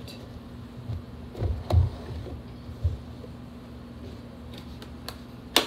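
Plastic food-storage tubs handled on a kitchen countertop: a few soft thumps between about one and a half and three seconds in, and a sharp click near the end, over a steady low hum.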